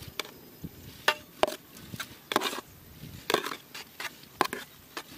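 Perforated metal ladle scraping and knocking against an aluminium pot as half-boiled rice is scooped out and dropped into a large pot of boiling masala: a series of short scrapes and clinks, roughly one a second.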